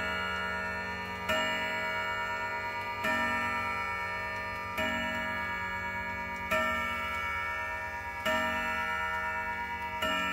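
Howard Miller wall clock's chime movement striking the hour on its chime rods: six strikes about 1.75 s apart, each ringing on and fading, part of an eight-stroke strike for eight o'clock. A faint ticking of the movement runs underneath.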